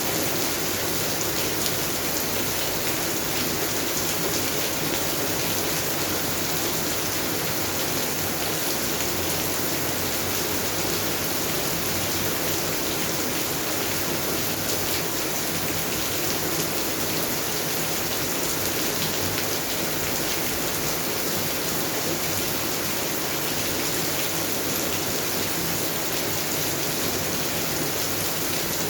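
Steady rain falling on garden plants and ground, a dense even hiss with many fine drop patters.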